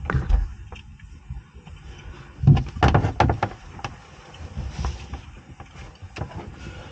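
Handling noise from battery cables being fed along the inside of a boat's hull: irregular knocks, rubs and scrapes over a low rumble, loudest in a cluster about two and a half to three and a half seconds in.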